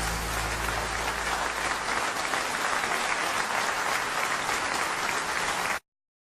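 Audience applauding, with the last chord of the song dying away in the first two seconds; the applause cuts off abruptly near the end.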